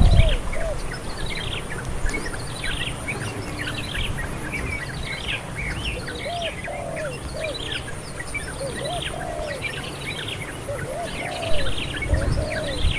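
Several birds chirping in quick, high, short notes, with a lower arched call repeating in small groups. A steady high insect buzz runs underneath, and a brief low thump comes near the end.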